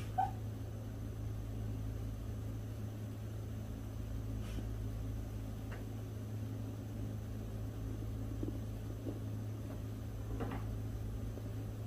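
Bichon Frise dog whimpering in its sleep while dreaming: one short, high squeak just after the start, then a few fainter soft noises later, over a steady low hum.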